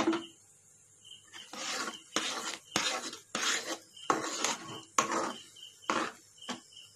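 Spatula scraping and stirring thick milk-powder peda dough around a nonstick pan, with a sharp tap at the start. About ten rasping strokes follow from a second and a half in, roughly two a second. The dough, with ghee worked in, is thickening in the pan.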